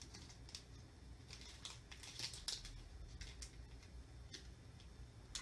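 Faint, scattered light ticks and rustles of chunky craft glitter shapes being scooped and poured into a glitter mix.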